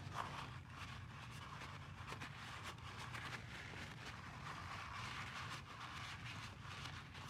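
Wiping grease and oil out of the oil filter housing of a CFMOTO 300SS motorcycle engine: a faint, quick run of irregular small scuffs and clicks over a steady low hum.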